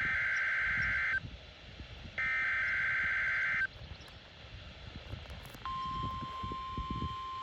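NOAA Weather Radio Required Weekly Test: the last two of the three SAME digital header bursts, each a buzzy warbling data squeal about a second and a half long. About two seconds after the last burst, the steady 1050 Hz warning alarm tone starts and is still sounding at the end.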